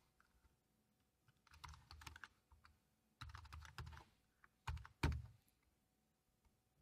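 Computer keyboard typing: two short runs of quick keystrokes, then two heavier key presses about five seconds in.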